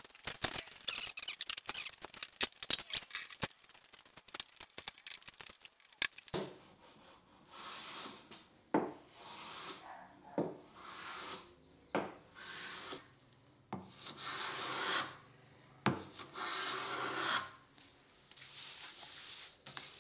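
A hand tool worked across wood: about six seconds of quick, dense rasping strokes, then about seven slower, separate strokes, each about a second long and starting sharply.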